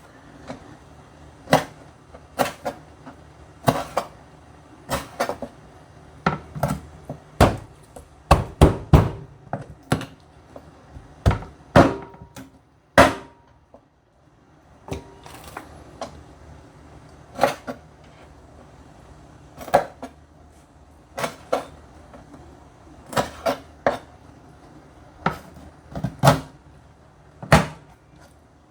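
A knife chopping through chicken feet on a cutting board to cut off the nails: single sharp chops every second or two, with a quick run of chops about a third of the way in.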